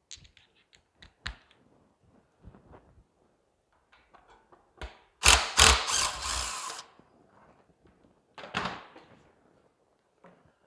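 Handheld cordless power driver running in a burst of about a second and a half, about five seconds in, as it backs out the fuel-tank mounting bolts on a small engine. A shorter burst follows about three seconds later, after light clicks and knocks of metal parts being handled.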